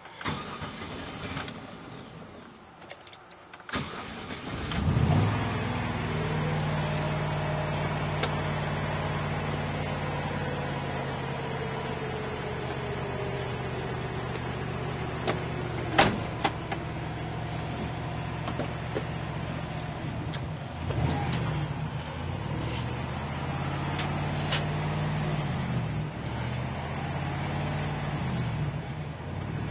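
Van engine catching about four seconds in, then running steadily. Its pitch wavers twice near the end. The engine stays running only while given gas and dies when the throttle is released.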